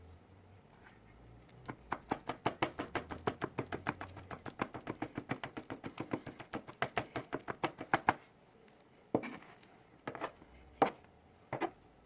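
Kitchen knife chopping dried fruit (cherries, prunes, raisins) by hand on a cutting board. Quick, even chops come about five a second for around six seconds, then a pause and a few single chops near the end.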